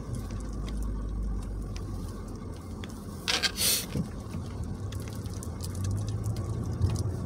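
Low steady rumble of a car running, heard from inside the cabin, with two brief hissing bursts a little over three seconds in.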